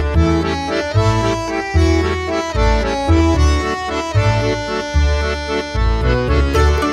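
Background music: an instrumental tune with held melody notes over a bass note that repeats at a steady pace.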